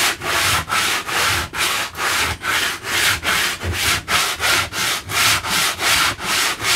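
Coarse 60-grit sandpaper rubbed by hand back and forth over rough pallet wood, a steady rasping in even strokes of about three a second.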